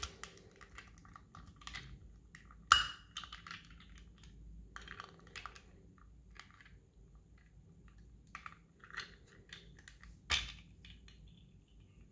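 Small plastic transforming toy car (Silverlit Poli Robocar mini Amber) being handled: scattered light clicks and taps of plastic parts moving and snapping into place, with two sharper knocks, about three seconds in and about ten seconds in.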